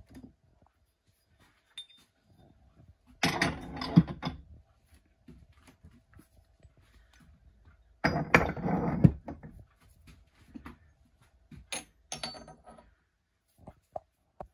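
Cast aluminium ingots clinking and scraping against each other as they are handled and stacked by hand. There are two longer bouts of clatter, about three and eight seconds in, then a few lighter knocks near the end.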